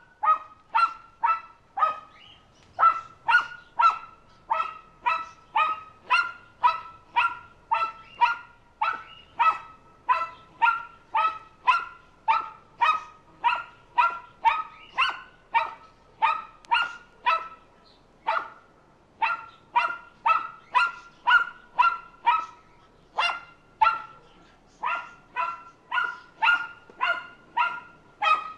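A dog barking over and over, short evenly spaced barks at about two a second, with a couple of brief pauses in the second half.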